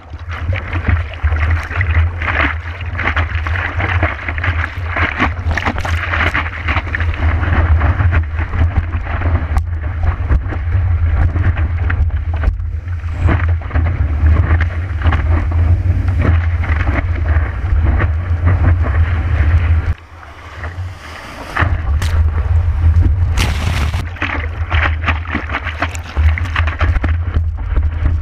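Seawater rushing and splashing over a longboard's nose around a board-mounted camera, with heavy wind and water buffeting on the microphone as a deep rumble, while the board is paddled and then rides a breaking wave. The noise drops away briefly about twenty seconds in and comes back.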